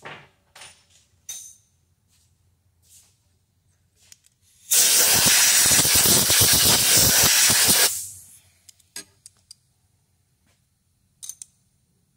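Compressed-air blow gun blasting for about three seconds, clearing metal chips off a freshly milled workpiece held in a milling vise. A few light clicks and taps from handling come before and after.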